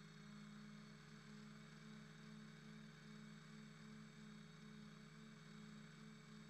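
Near silence with a faint, steady low hum.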